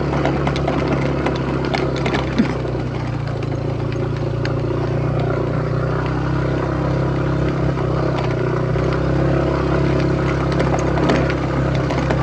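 Motorcycle engine running at a steady pace while riding, with wind and road noise and scattered faint clicks.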